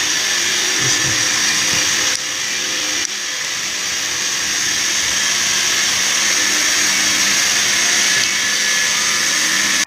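Steady, loud whirring noise of a running motor-driven machine, with a slight drop about two seconds in and a sudden stop at the end.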